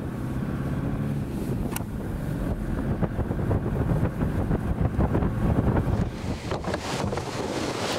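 Toyota Hilux pickup heard from inside the cab while driving over farmland: a steady engine and road rumble, with occasional sharp knocks and rattles, one clear one about two seconds in.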